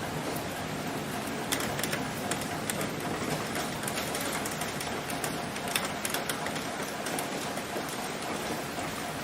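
Steady rain falling on plant leaves: an even hiss with individual drops striking sharply at irregular moments.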